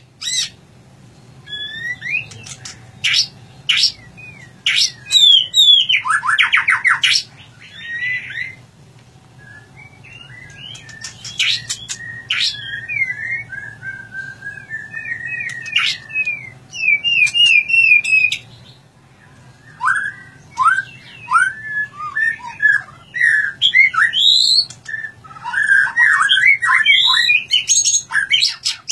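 White-rumped shama (murai batu) singing in its cage: a varied run of loud whistles, fast trills and chirps in separate phrases, with a short lull about a third of the way in.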